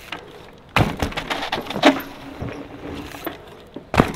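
Mountain bike rattling over the trail: sharp knocks and clatters about a second in, again near two seconds, and just before the end.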